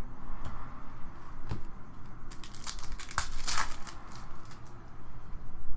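Crinkling and rustling of trading cards and their packs being handled, with a burst of sharp crackles and clicks midway.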